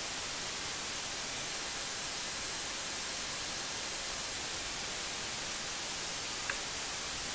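Steady, even hiss with one faint click about six and a half seconds in.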